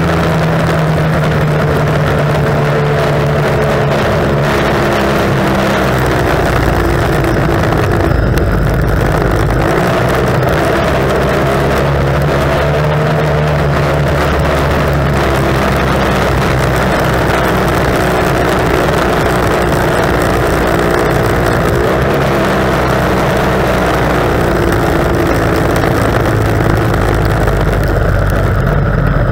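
Racing outboard engine on a tunnel-hull race boat running hard at high revs, heard onboard, with its pitch wavering up and down. Wind and water rush loudly past the boat throughout.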